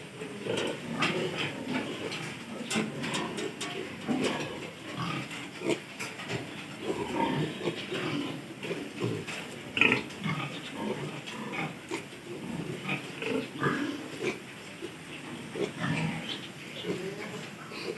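A pen of piglets grunting in many short, irregular calls, with one louder, higher-pitched call about halfway through.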